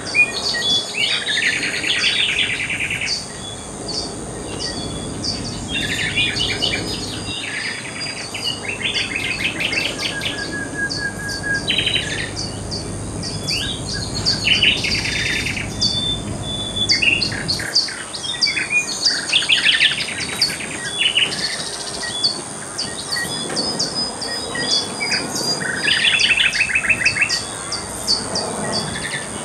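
Chorus of birds and insects from field recordings: rapidly pulsed chirping trills, each about a second long, come every few seconds over quick repeated high chirps and a steady high insect drone.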